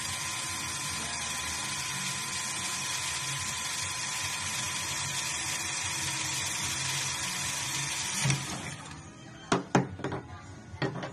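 Ingco 12V cordless drill running at a steady speed as it bores into a thin workpiece, cutting off about eight seconds in. A few sharp knocks follow near the end.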